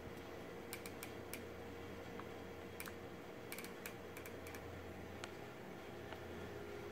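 Faint, irregular light clicks and ticks, about a dozen scattered over the first five seconds, from shooting gear being handled. A low steady hiss runs beneath them.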